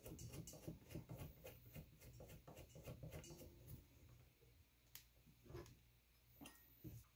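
Faint clicking and ticking of small plastic kit parts being handled on a spacer parts tree: a quick run of small clicks for the first few seconds, then a few separate clicks near the end.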